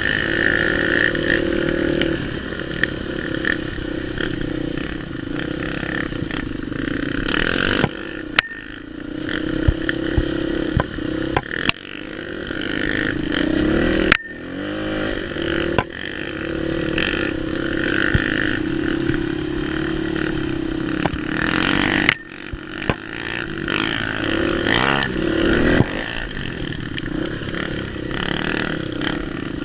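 Dirt bike engine running on a rough sandy trail, its pitch dipping and rising as the throttle is eased and opened again. Sharp knocks and clatter come every few seconds as the bike hits bumps.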